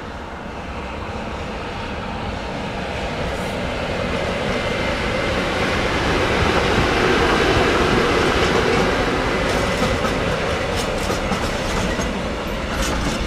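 A train approaching and passing close by: a rumble of wheels on rail that grows louder to a peak about halfway through, then holds, with quick clicks of wheels over rail joints in the last few seconds.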